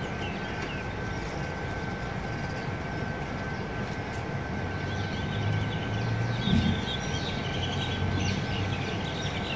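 Outdoor background noise: a steady hiss with a constant thin high tone, a low rumble that swells about halfway through like distant traffic, and a few faint bird chirps.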